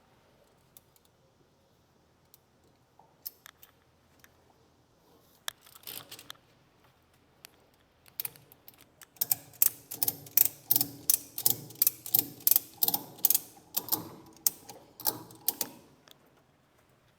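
Ratchet tie-down strap being cranked tight: a few scattered clicks, then a quick run of sharp ratchet clicks, about three a second, for several seconds.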